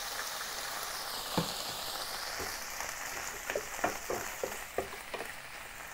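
Chopped Chinese broccoli (gai lan) sizzling steadily in a hot non-stick pan just after a splash of water is added, the water steaming off. From about three and a half seconds in, a wooden spatula stirring the greens gives a run of short clicks and scrapes against the pan.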